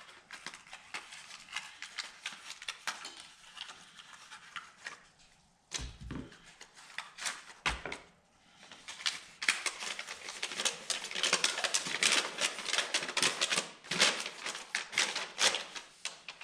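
Product packaging being torn open and handled: rapid crinkling and crackling, sparse at first and dense through the second half, with two dull thumps about six and eight seconds in.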